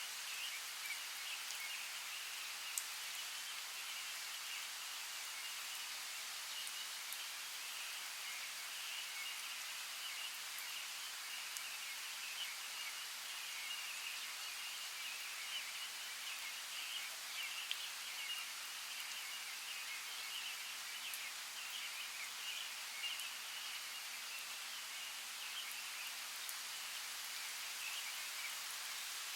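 Rainforest ambience: steady rain hissing and pattering, with scattered drops ticking.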